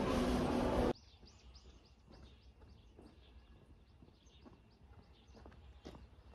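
Loud indoor shop din with voices cuts off abruptly about a second in. Quiet outdoor ambience follows, with small birds chirping in short, repeated high calls.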